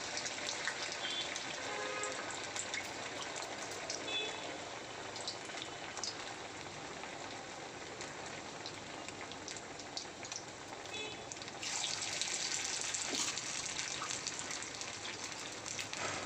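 Sabudana vadas deep-frying in hot oil in a kadai: a steady sizzle with crackling, louder from about twelve seconds in.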